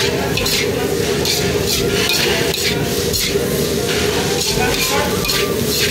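Metal ladle or spatula clinking and scraping against a wok as vegetable noodles are tossed and stirred, in irregular strokes two or three a second, over a steady hum.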